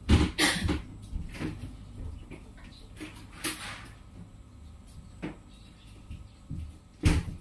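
A few short rustling and knocking handling sounds: one just at the start, one about three and a half seconds in and one near the end, with a light click between them.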